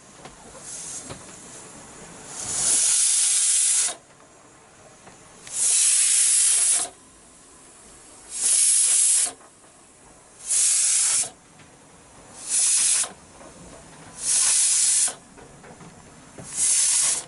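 Water rushing and hissing past a sailing yacht's hull as it surges down the waves at speed. The rush comes in seven loud bursts about two seconds apart, each a second or so long, with a quieter wash between them.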